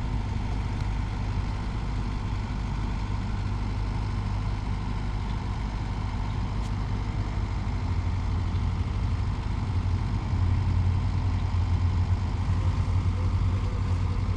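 Small boat motor running steadily with a low hum, growing louder about 8 seconds in and again about 10 seconds in.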